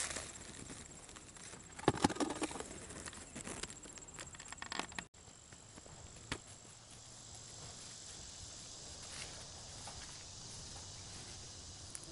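Cucumber vines and large leaves rustling and snapping as they are pushed aside by hand, in several close bursts over the first five seconds. After a sudden short cutout the sound drops to a quieter outdoor background with a few soft steps in the mulch.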